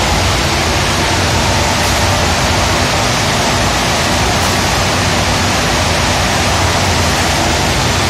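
Twin-furnace package boiler firing: a steady, loud roar of the furnace and its machinery, with a faint steady hum underneath.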